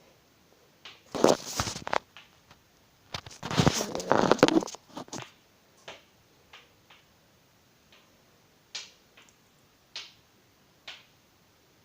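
Close handling noise: two bursts of rustling, then scattered small clicks.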